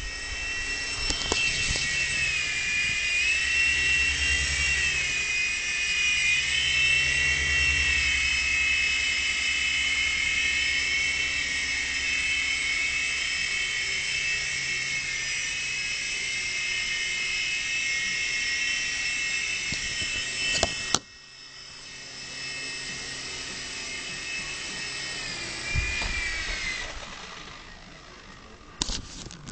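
Small model helicopter whining in flight, the high motor and rotor pitch wavering up and down. About two-thirds of the way through, a sharp click comes and the sound drops suddenly to a quieter whine. Later a low thump, then the whine winds down and fades, with a few clicks at the end.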